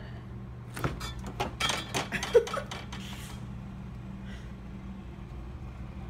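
Refrigerator door being pulled open: a quick run of clicks and knocks lasting about two seconds, starting about a second in, with a short squeak in the middle, over a steady low hum.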